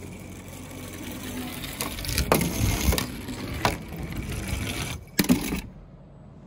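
Toy minicars rolling across a hard surface with a steady rumble and several sharp clacks. The rolling stops abruptly near the end.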